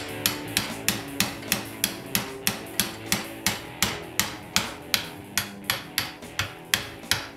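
Hammer blows on a drift, metal on metal, knocking a slider pin out of a single-piston sliding rear brake caliper held in a vise. The strikes come evenly at about three a second.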